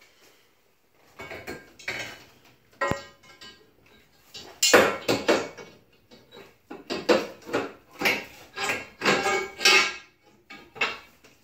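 Tubular steel turbo exhaust manifold clanking and scraping against the engine as it is worked onto the engine block, a series of irregular metal knocks, some ringing briefly.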